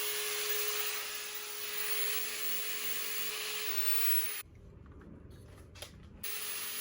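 Electric sander running on fiberglass over a damaged surfboard, a steady hiss with a constant motor hum. It stops about four and a half seconds in, there is a click, and it starts again near the end.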